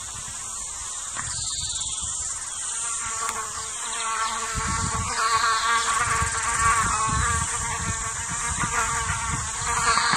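Steady high-pitched insect drone, with a warbling, pulsing mid-pitched tone swelling in about four seconds in and a low rumble underneath. The sound is software-boosted.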